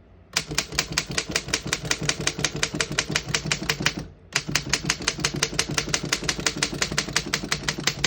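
Typing on a 1929 Underwood No.5 manual typewriter: rapid, evenly paced keystrokes with the typebars striking the platen, in two runs with a brief pause about four seconds in.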